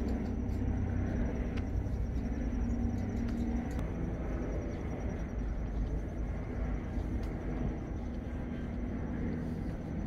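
Steady low engine rumble of motor traffic, with a faint steady high whine above it and a few light clicks.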